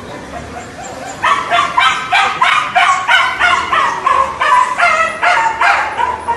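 A stuck puppy crying out in a rapid series of high yelps, about two to three a second, each dropping slightly in pitch. The cries turn loud about a second in.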